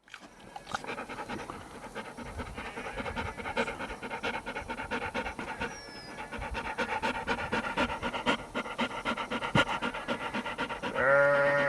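Dog panting steadily in quick, even breaths. Near the end a loud, drawn-out call rises over it.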